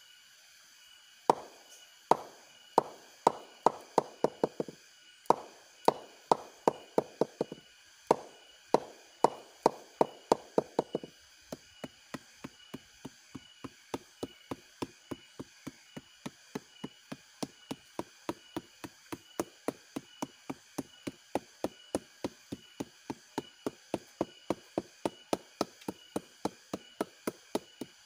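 A mallet repeatedly knocking on the flower stalk of an aren (sugar) palm, beating it to soften the stalk before it is tapped for sap. The knocks come in quick, loud runs with short pauses between them. After about eleven seconds they settle into a steady, softer rhythm of about two to three knocks a second.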